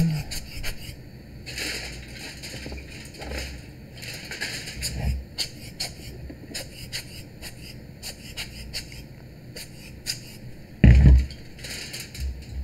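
Rubber bulb air blower puffing air over camera lens elements in a few short hisses, among small clicks and taps of lens parts being handled. A dull thump near the end is the loudest sound.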